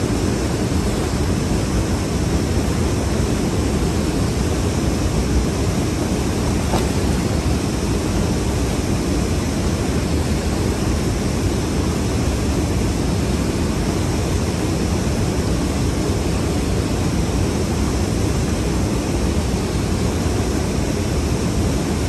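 Steady rushing of a fast mountain river: a loud, even water noise, heaviest in the low end, with no let-up.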